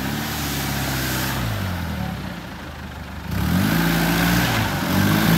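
Off-road 4x4's engine revved hard and held, dropping back about two seconds in, then revving up again a little past halfway, as it tries to climb a slope of loose soil.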